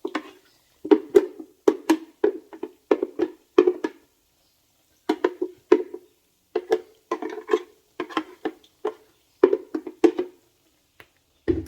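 Akara bean batter being beaten in a bowl: runs of short knocks, about two to three a second, with a pause about four seconds in.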